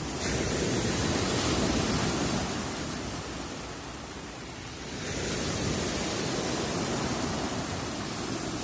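Black Sea surf: waves breaking and washing up on the shore, one swelling right at the start and easing off, a second building about five seconds in.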